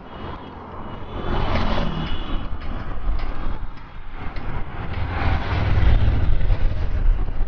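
Road traffic, cars and buses going by, with a heavy wind rumble on a moving microphone. The noise swells about a second in and again at about five seconds.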